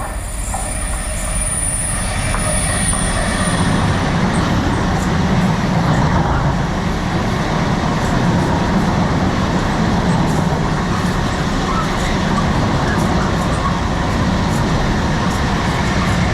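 Freightliner freight train passing through the station, its wagons rumbling by steadily. A high thin squeal is heard in the first few seconds and fades out by about four seconds in.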